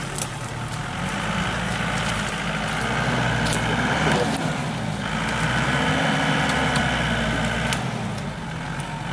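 4x4 SUV engine working hard off-road, revved up and let down twice, its pitch swelling and falling back.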